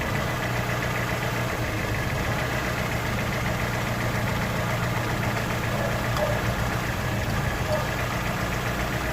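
Engine idling steadily with a replacement spark plug fitted to cylinder number 1, the cylinder that had been misfiring; the owner finds it now runs smoothly without shaking.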